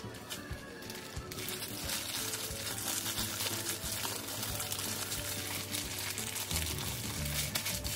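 Plastic zip-top bag crinkling and rustling as hands squeeze and knead marinated chicken pieces inside it, a dense crackle that starts about a second in, over background music.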